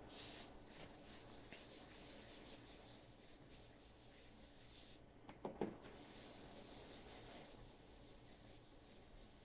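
Faint hand sanding: a 320-grit sanding block rubbed in strokes across filler primer on a 3D-printed RC body part. A brief, louder knock about halfway through.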